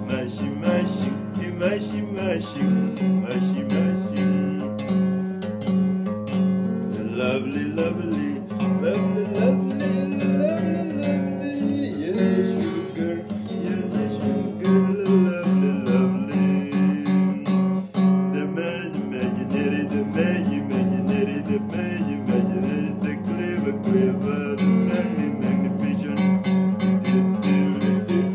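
Acoustic guitar music, many quick plucked notes and strums.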